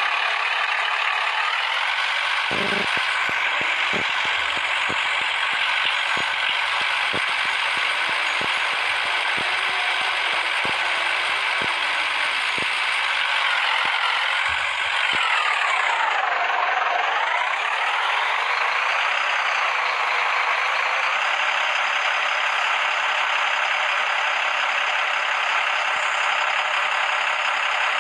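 A heavy road-construction machine running steadily with a high mechanical whine over its engine note. The pitch dips sharply and comes back up a little past halfway. Through the first half there are regular clicks, about three every two seconds.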